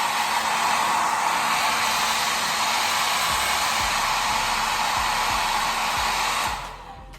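Handheld hair dryer blowing steadily, drying freshly sprayed wig-lace adhesive; it is switched off near the end.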